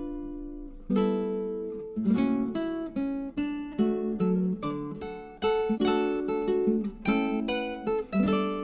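Background music: acoustic guitar playing chords, a new strum about every second, each ringing and dying away.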